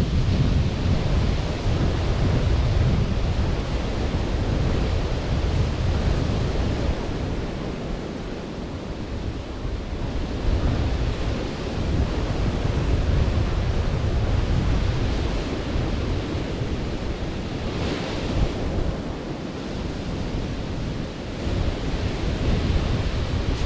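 Sea waves washing on a beach, with wind rumbling on the microphone. The sound swells and eases, with a brief brighter hiss of a breaking wave late on.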